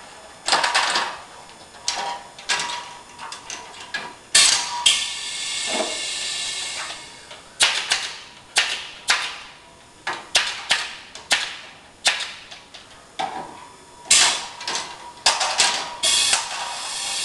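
Canvas-stretching tool at work: a string of sharp clacks and snaps at irregular intervals, some with a brief ringing tail. About four seconds in there is a steady hiss lasting a couple of seconds.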